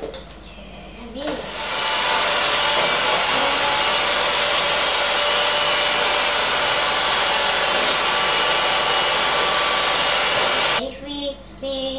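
Electric hand mixer running at one steady speed while beating sponge-cake mixture, switched on about a second in and off near the end.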